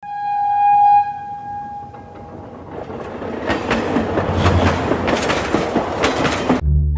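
Train horn sounding one steady note for about two seconds, then the rumble and rhythmic clattering of train wheels over rail joints as the train passes, cutting off abruptly near the end.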